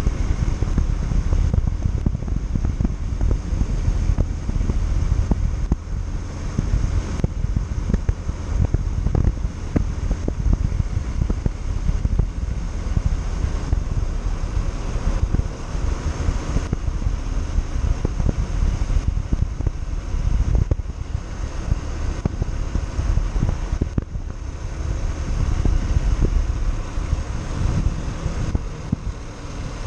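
Wind buffeting the microphone while riding a Yamaha Factor 150 motorcycle, a steady low rumble with the single-cylinder engine running underneath.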